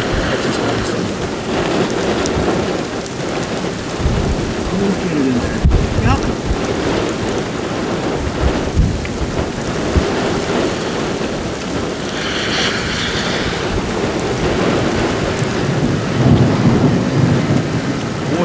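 Steady heavy rain with wind noise, and low rumbles of thunder about four seconds in and again near the end.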